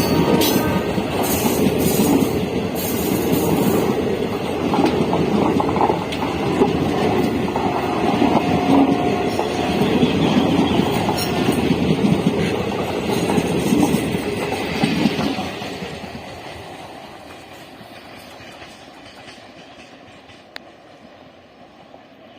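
Indian Railways train passing at speed, its wheels clattering rhythmically over the rail joints. About fifteen seconds in, the sound falls away sharply and fades as the train moves off.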